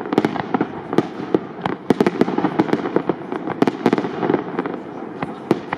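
Aerial firework shells of up to 75 mm calibre bursting in a rapid barrage: many sharp bangs, several a second, over a continuous rumbling wash of overlapping bursts.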